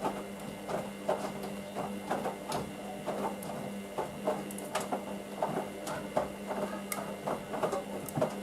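Hoover DYN9144D3X front-loading washing machine running its wash, with a steady hum and frequent irregular clicks and knocks. The hum cuts off at the very end.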